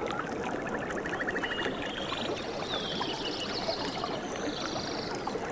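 Stream water flowing and splashing steadily, with high chirps and rapid trills calling over it again and again.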